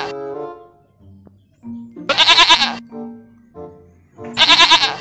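A goat bleating twice, each bleat a loud, wavering call lasting under a second: one about two seconds in and one near the end, with the tail of an earlier bleat at the start. Background music plays underneath.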